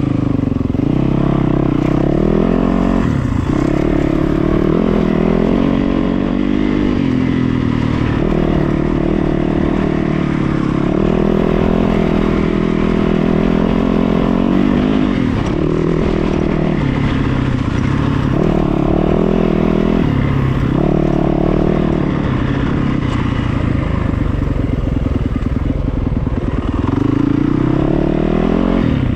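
An engine running, its pitch rising and falling every few seconds as the revs change.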